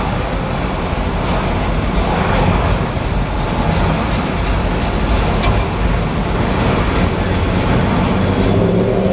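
Freight train of autorack cars rolling past close by: a steady, loud noise of steel wheels running on the rails, with faint clicks as the wheels pass over the rail joints.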